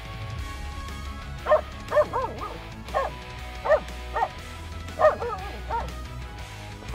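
Finnish Spitz barking in short, sharp, high barks, about eight of them in quick succession, starting about a second and a half in and stopping near the end.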